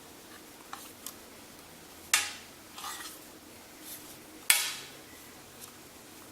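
Handling noise of hard objects: a few light clicks, then two sharp clattering knocks about two and a half seconds apart, each trailing off briefly, with smaller knocks between them.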